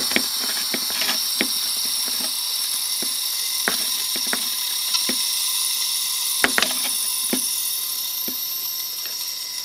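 Seagate hard drive platter spun by a jet of compressed air: a steady high hiss with a thin steady tone under it, and irregular clicks and scrapes from the heads rubbing on the scratched disc, which sounds unhealthy.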